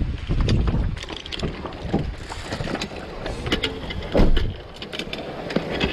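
Wind buffeting the microphone, with scattered clicks and knocks as fishing gear is handled in a car's open boot, and a louder thump about four seconds in.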